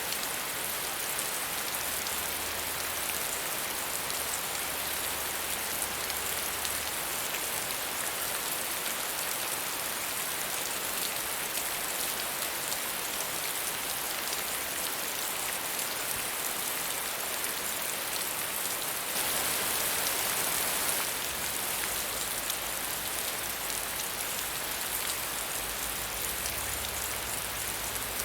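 Steady medium rainfall, an even hiss of rain on surfaces with fine individual drop patter, swelling slightly louder for a couple of seconds about two-thirds of the way in.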